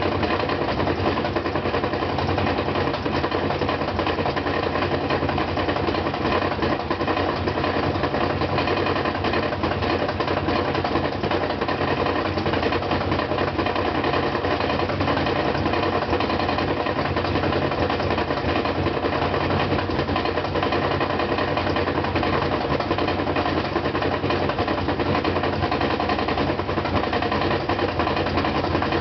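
GE Hydrowave washing machine in its spin cycle, making an extremely loud, rapid, steady knocking over the hum of the spinning drum. The cause is the loose concrete counterweight that balances the motor: its two holding screws had never been tightened.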